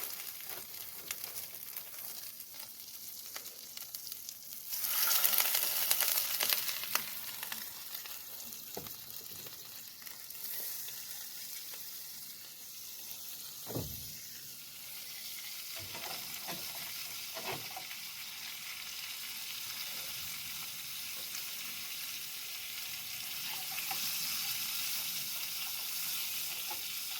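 Trout sizzling as they fry in a hot pan, a steady hiss that swells louder for a couple of seconds about five seconds in. A single knock sounds about fourteen seconds in.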